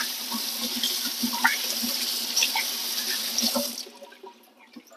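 Kitchen tap running with hands being washed under the stream, the water shut off about four seconds in.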